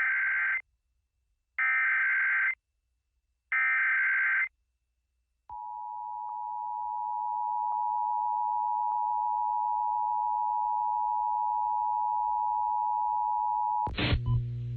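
Emergency Alert System tones: three short bursts of SAME header data, each about a second long, then a steady two-tone attention signal that holds for about eight seconds. A different loud sound cuts in just before the end.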